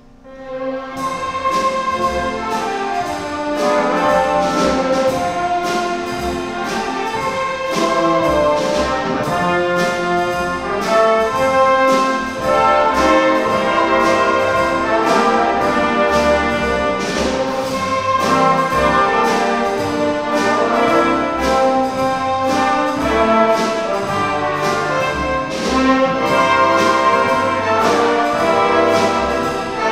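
Full symphony orchestra playing a loud, brass-led passage with a steady beat, coming in strongly about a second in.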